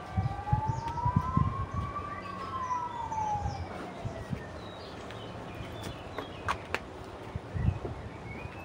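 A distant siren wailing: one tone that rises for about two seconds, then falls away over the next two. A few dull knocks of things being handled and set down come in the first second or so and again near the end.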